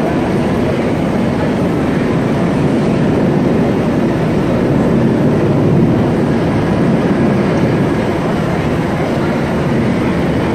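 U.S. Coast Guard rescue helicopter hovering low overhead: a loud, steady rush of rotor and turbine noise.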